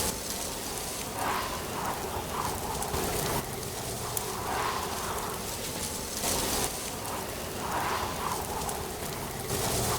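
Ambience of autumn wind and rustling leaves: a steady hiss that swells softly every second or so, with a few brief crackles.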